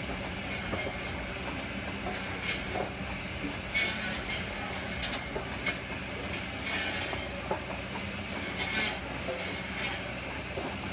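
Log-cutting drum saw machine running steadily with a constant hum, with irregular knocks and clatter from the logs as they are cut and moved.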